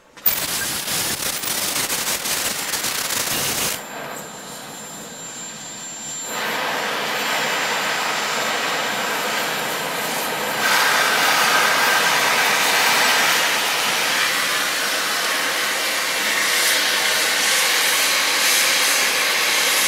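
Oxy-fuel cutting torch on a Victor DC2400 duplicator lighting with a sudden start and then hissing steadily, its flame on a 4-inch-thick plate. The hiss drops about four seconds in, then comes back and grows louder around six and again around ten seconds in.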